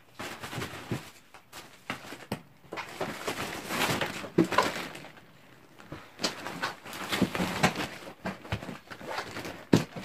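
A hard-shell suitcase being packed and shut: rustling of the stuffed contents and plastic bags, with irregular knocks and thumps as the lid is closed and pressed down.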